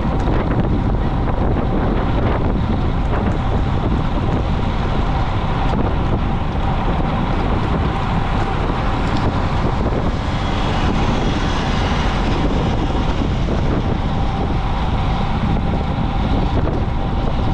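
Steady wind noise rushing over the microphone of a camera mounted on a moving road bike at race speed.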